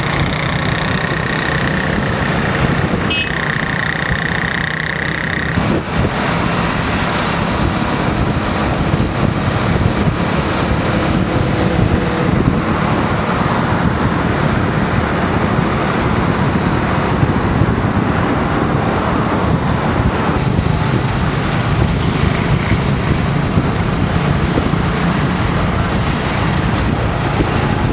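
Steady engine and road noise from moving through city traffic among motorbikes and cars. A high steady tone runs through the first five seconds or so, with a brief break about three seconds in.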